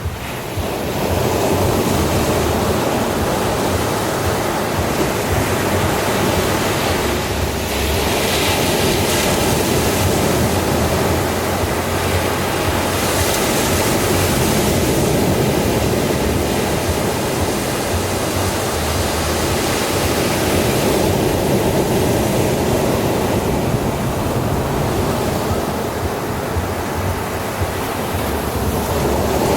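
Ocean surf washing onto a beach: a steady rush of water that swells several times as waves break.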